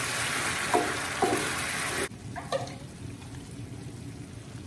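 Sautéed canned sardines in sauce sizzling in a frying pan while a wooden spatula stirs them, knocking against the pan twice. About two seconds in the sizzle cuts off suddenly, leaving it much quieter with a few light clicks.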